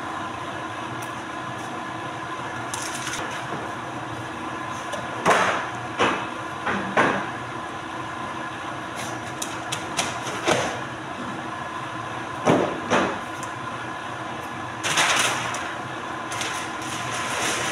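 Polar 115 guillotine paper cutter running with a steady hum, over which come several sharp knocks as paper is handled at the machine, and a rustle of paper sheets being shaken out about three-quarters of the way through.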